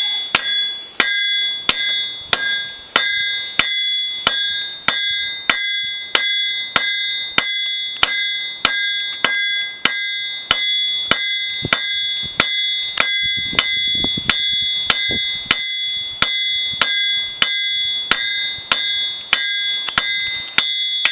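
Blacksmith's hammer striking hot 12 mm square steel bar on an anvil in a steady, even rhythm, about two to three blows a second, drawing out a tapered point. Each blow leaves the anvil ringing with a clear, high, bell-like tone.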